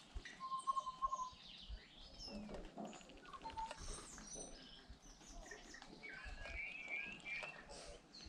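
Tui singing: a clear held note about half a second in, then a varied run of clicks, short notes and high whistles, with a warbling phrase about six to seven seconds in.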